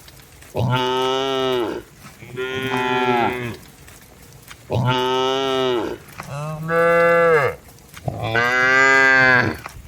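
Cattle mooing: five long, loud moos in a row, with short pauses between them.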